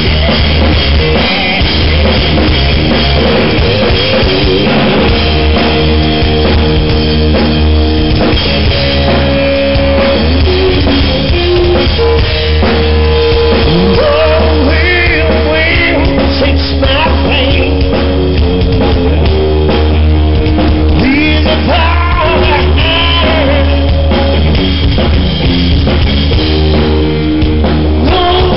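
Live rock band playing loud: electric guitars and drum kit with a singer, over a strong, steady low bass.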